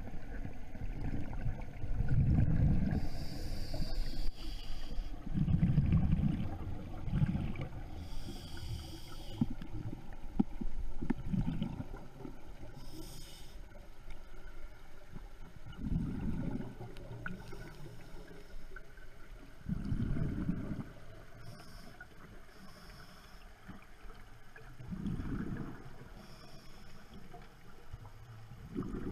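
Scuba diver breathing through a regulator underwater: a short hiss on each inhale, then a low bubbling burst of exhaled air, repeating every four to five seconds.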